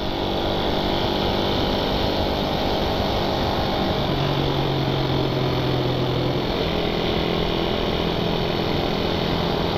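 Suzuki Satria FU 150's single-cylinder four-stroke engine with its stock exhaust, running steadily while riding at speed, under an even rush of wind and road noise. A clearer steady engine note stands out for a couple of seconds midway.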